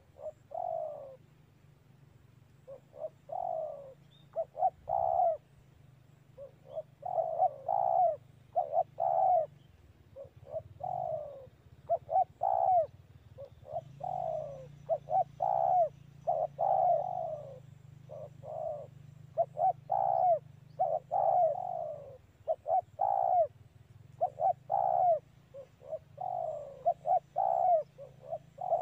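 Spotted dove (tekukur) cooing over and over, in the unusual 'neken' call style: short phrases of a few coos, each note falling in pitch, repeated every second or two with brief pauses.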